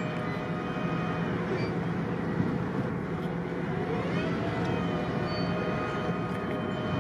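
Marine diesel engines of the tug and the coastal motor ship running, a steady drone made of many held tones over a low rumble, with a slight rise in pitch about four seconds in.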